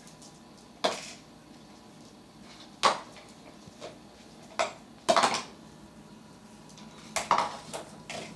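Blue plastic bowl knocked and pushed across a vinyl floor by a Schnauzer puppy, making a series of irregular clattering knocks, with quick bursts of them just after five seconds and again after seven.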